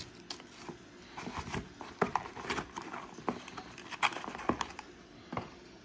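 Handling of a small cardboard box on a table: an irregular run of light taps, clicks and knocks as the box is closed and pushed aside, the sharpest about two and four seconds in.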